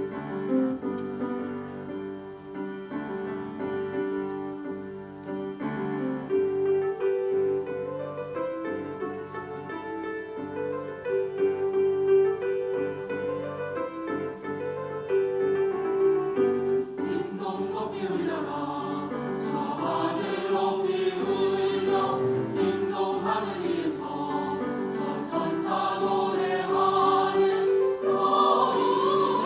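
Choir singing with piano accompaniment. Past the halfway point the voices become fuller and louder.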